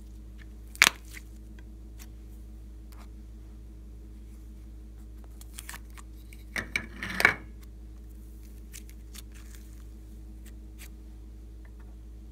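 Glossy slime and soft clay handled in a glass dish: one sharp slap about a second in, and a cluster of sticky squishes and taps about seven seconds in. A faint steady hum runs underneath.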